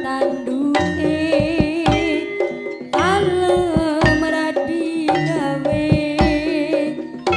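Live Javanese jaranan music: kendang hand drums beating under a pitched melody with a wavering, vibrato-laden high line.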